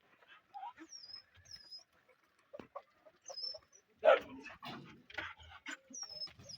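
Poultry-yard animal sounds: short high chirps that fall in pitch, repeating every second or so, and a louder call about four seconds in, followed by a few shorter calls.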